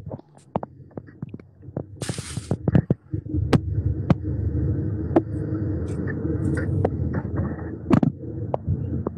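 Steady low rumble of a moving car's cabin at highway speed, coming in about three seconds in and sounding cut off at the top as if carried over a phone connection, with scattered sharp clicks and knocks throughout.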